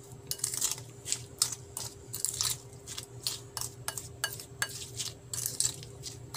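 Wooden spoon stirring and scraping a wet mix of chopped onion, garlic and chili in a glass bowl, about three quick strokes a second.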